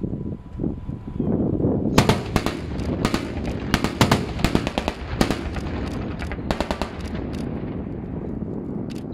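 A BMP-2 infantry fighting vehicle firing automatic fire in several short, irregular bursts, starting about two seconds in and stopping about seven seconds in. Its engine runs with a steady low rumble underneath.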